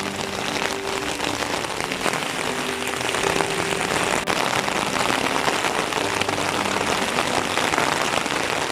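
Heavy rain falling steadily, with soft music faintly underneath.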